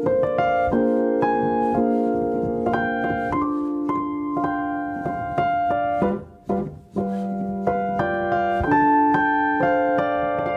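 Solo piano music, notes played one after another at an unhurried pace, briefly dropping away about six and a half seconds in.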